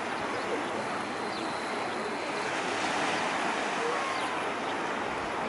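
Sea surf washing in, an even, steady rush of water.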